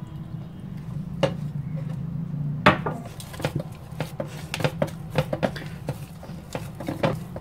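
Hands kneading soft pita dough in a glazed ceramic bowl, with irregular knocks and taps as hand and dough strike the bowl, the sharpest about two and a half seconds in, several a second after that. A steady low hum runs underneath.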